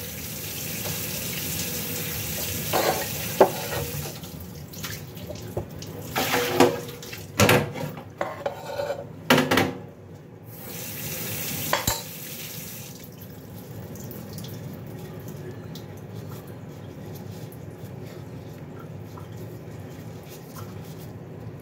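Food-prep handling: plastic-gloved hands folding blanched cabbage leaves and a metal spoon knocking and scraping minced filling onto a leaf. Sharp knocks and crinkles come in the first half, then a steady low hiss.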